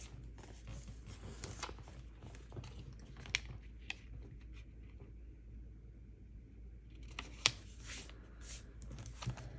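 Scattered small clicks, taps and rustles of paper and sticker sheets being handled on a planner page, with a quieter stretch about halfway through.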